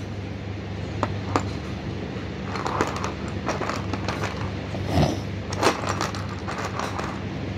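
A few light clicks and knocks from small plastic chess pieces being handled, over a steady low electrical hum.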